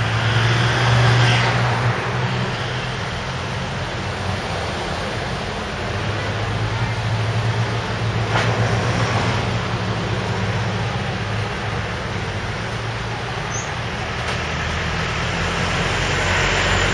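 Street traffic: motor vehicle engines running and passing, a low hum that swells and fades over a steady wash of road noise.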